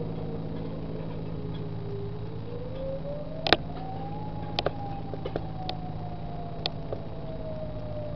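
Distant lahar warning sirens wailing: a single tone falls, rises for about two seconds, then slowly falls again. A steady low hum runs underneath, and a few sharp clicks or knocks come through, the loudest about three and a half seconds in.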